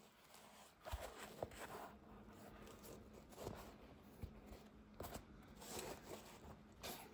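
Faint rustling and a few soft knocks from a black leather-and-mesh sneaker being handled: its tongue flexed, the shoe turned over and the toe box squeezed. A faint steady low hum runs underneath.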